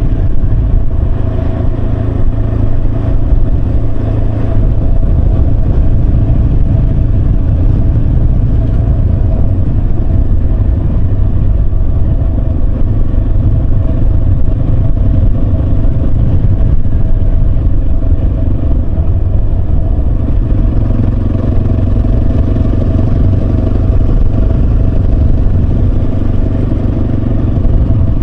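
Yamaha Serow 250's air-cooled single-cylinder engine running steadily on the move, its note dropping slightly about twenty seconds in.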